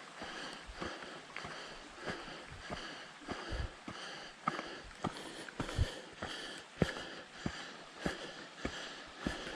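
A hiker's footsteps on the trail at a steady walking pace, about three steps every two seconds, with the hiker's breathing underneath.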